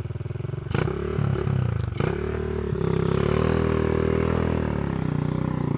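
KRY200 enduro dirt bike engine revving under load while the bike is worked up a muddy rut. The engine revs rise about three seconds in and hold steady, with a couple of sharp knocks early on.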